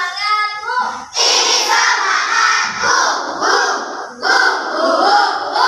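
A class of young children shouting together in unison: a sung, held note for about a second, then loud rhythmic shouted phrases.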